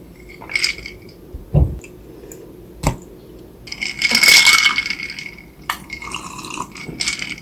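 Eating and tableware sounds: a few sharp clinks and a dull knock of utensils against dishes, then a longer rustling, crackling burst of about a second around the middle.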